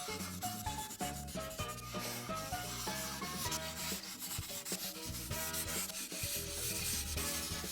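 Alcohol marker tip rubbing back and forth on paper in quick scratchy strokes, over background music with a stepping melody and a bass line.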